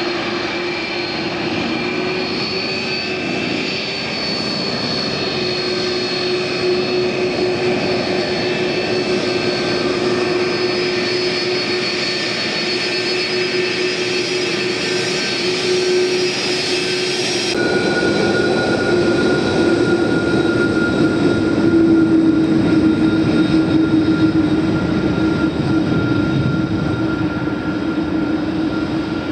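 Jet engines of an Airbus A330-300, General Electric CF6-80E1 turbofans, running at high power during takeoff: a steady rush with held whining tones. The sound changes abruptly about two-thirds of the way through, and the rush grows slightly louder afterwards.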